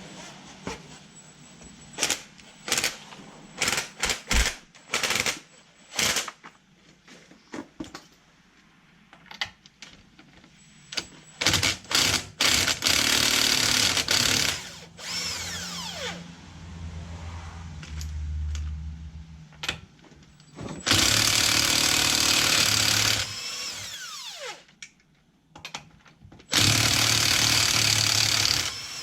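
Impact wrench run in three bursts of about two seconds each, each trailing off in a falling whine as it spins down. Before the bursts come scattered metallic clicks and clanks from handling tools and parts.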